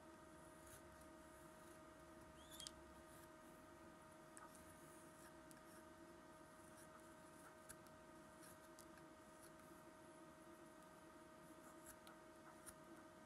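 Faint scraping and small ticks of a knife whittling a pine lure body, over a steady low-level hum.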